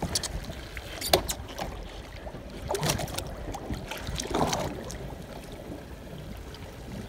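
Water slapping against a boat's hull, with wind rumbling on the microphone and a few sharp knocks.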